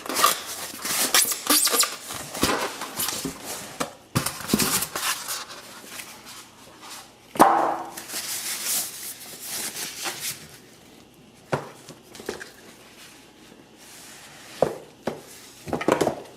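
Packaging being handled and rustled while an item is lifted out of a cardboard box, with a sharp knock that rings briefly about seven seconds in. Quieter after about ten seconds, with a few scattered clicks.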